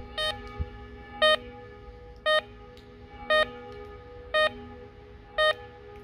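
Digital pager's alert tone beeping about once a second, six short beeps, as it receives a test alarm sent over POCSAG. A steady tone hums underneath.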